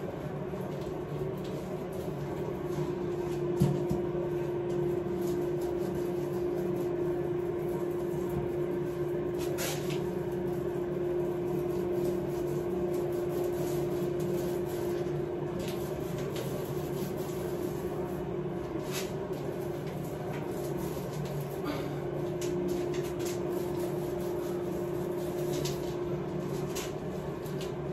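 Steady low mechanical hum with one held tone. One sharp knock comes about four seconds in, and a few faint clicks and scrapes follow as hand tools are worked over the wallpaper.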